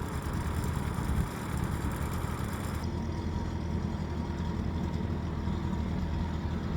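Boat engine running steadily with a low hum, the higher hiss dropping away abruptly about three seconds in.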